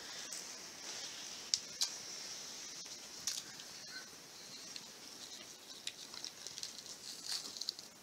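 Flatbread being torn apart by hand: soft crackling and rustling with a few sharp ticks, over a steady high-pitched hiss.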